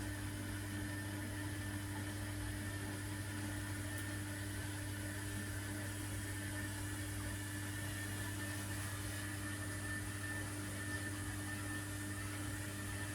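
Electrolux EW1057F washing machine humming steadily, with a faint high whine over the hum, at the end of the main wash just before the interim spin.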